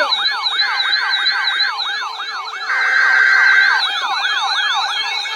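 Several electronic sirens sounding at once, yelping in fast rising-and-falling sweeps about three a second. A steady tone comes in over them for about a second at a time, twice.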